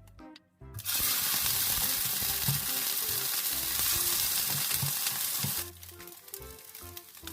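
Food sizzling in hot oil in a frying pan: a loud, even sizzle that starts abruptly about a second in and drops away shortly before the end.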